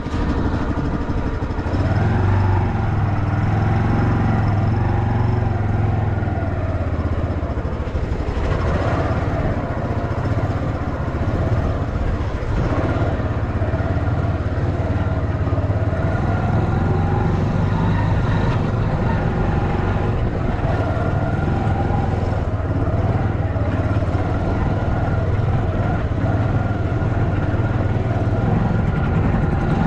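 Small engine of a homemade trike running steadily, its pitch wandering a little up and down as the revs shift.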